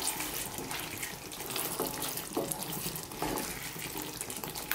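Wooden spatula stirring thick, wet beef curry in a non-stick pan: sloppy squelching with irregular short scrapes and knocks against the pan as the sauce reduces.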